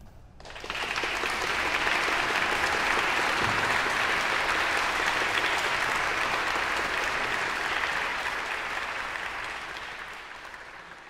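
Audience applauding. The clapping starts about half a second in, holds steady, then dies away near the end.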